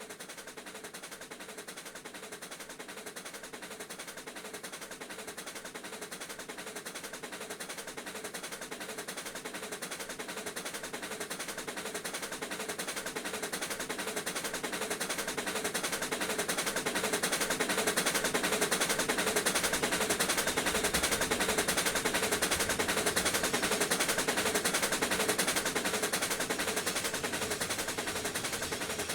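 Two Pennsylvania Railroad steam locomotives working together, 4-4-2 No. 7002 and 4-4-0 No. 1223: a fast, even rattle of exhaust beats that grows louder over the first two-thirds, then eases slightly.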